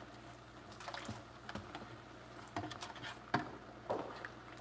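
Quiet kitchen handling: about six soft, irregular slaps and taps, the clearest a little after three seconds in, as tortilla dough is patted by hand and a large stockpot of soup is stirred.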